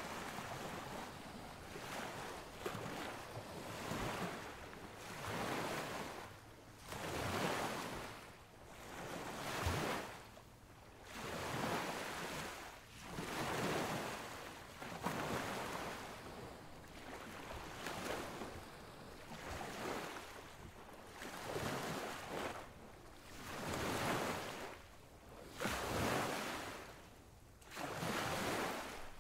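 Rushing noise of surf and wind, a hiss with no tone in it that swells and fades about every one and a half seconds.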